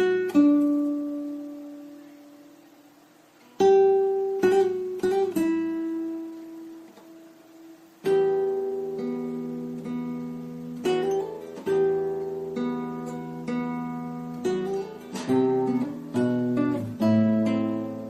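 Calm acoustic guitar music: plucked single notes and chords, each left to ring and fade away, slow and sparse at first and coming closer together later on.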